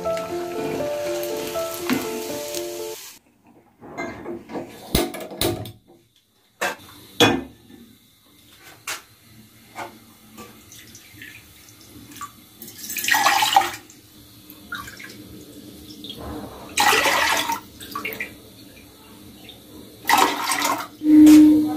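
Water poured from a cup into a small aluminium saucepan, three separate pours of about a second each in the second half. Utensils clink and knock before them. The first few seconds hold background music.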